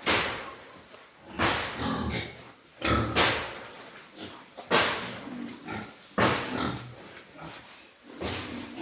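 Pigs squealing and grunting, with loud harsh cries about every second and a half and lower grunts between them.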